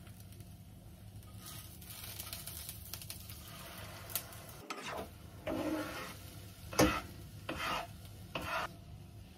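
Food sizzling in a hot frying pan as beaten egg is poured in. A wooden spatula then stirs and scrapes against the pan in about four separate strokes, one of them a sharp knock.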